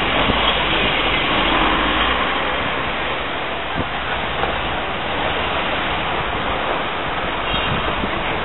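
Steady noise of a moving double-decker bus and passing street traffic: an even hiss over a low rumble, a little louder in the first couple of seconds.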